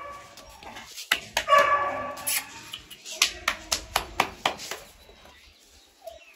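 Puppy yapping: a high bark at the very start and another about a second and a half in, followed by a quick run of sharp taps.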